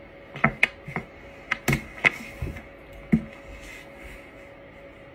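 A dog's paws tapping and clattering on a laptop keyboard: a quick, uneven run of sharp taps over the first three seconds.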